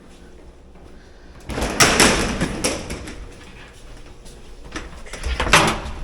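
Elevator doors sliding open: a rush of sliding noise starts about a second and a half in and fades, with more knocks and rustling near the end.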